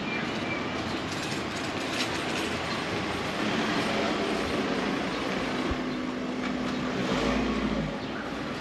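Train passing on nearby railway tracks, a steady rumble and hum over the street noise, louder from about three seconds in and dropping away near the end.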